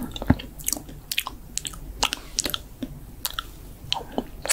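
ASMR mouth sounds: quick, irregular wet clicks and smacks of lips and tongue, several a second, made on a spoon held in the mouth in mimed eating.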